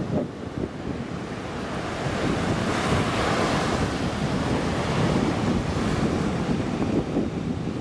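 Ocean surf washing onto a sandy beach, growing louder about three seconds in as a wave breaks, with wind buffeting the microphone.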